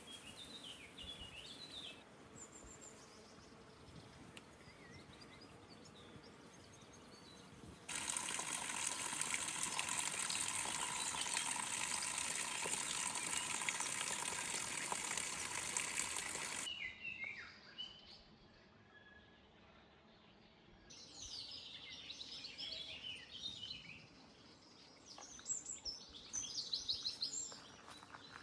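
Garden ambience of small birds chirping, cut in the middle by about eight seconds of loud, steady running water that starts and stops abruptly; birds chirp again near the end.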